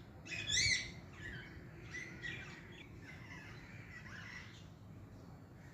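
Green Indian ringneck parakeet chirping: a loud run of sharp, high calls in the first second, then softer chattering calls that fade out a little before the end.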